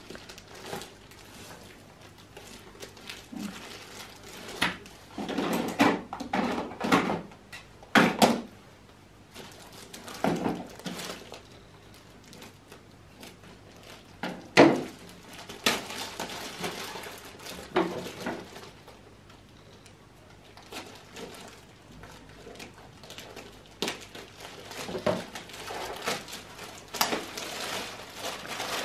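Clear plastic packaging rustling and crinkling in irregular bursts as it is handled and cut open with scissors, with a few sharp knocks and clinks, the sharpest about halfway through.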